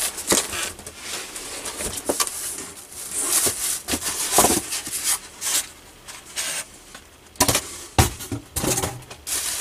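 A cardboard box and its foam packing being handled while unpacking: irregular scraping and rustling of cardboard and packing, with a few sharp knocks, two of them close together near the end.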